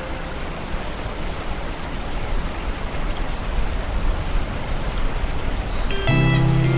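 Steady rain falling on a lake, an even hiss of drops on the water. About six seconds in, soft music with long held notes comes in over the rain.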